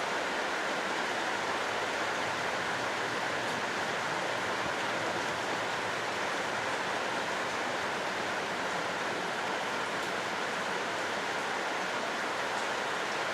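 Steady rushing hiss of wet, windy outdoor weather, even throughout with no train or other distinct sound standing out.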